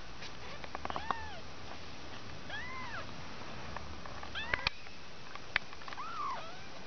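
Two-week-old kittens mewing: about four short, high mews that rise and fall in pitch, spaced a second or two apart, with a few small clicks between them.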